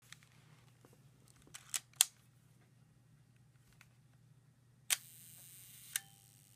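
Leica M3 rangefinder's mechanical cloth shutter firing twice. First comes a quick pair of sharp clicks. The second time it opens with a click and stays open for about a second with a faint steady whirring before it clicks shut. The owner finds this shutter sound strange and suspects something is wrong with it.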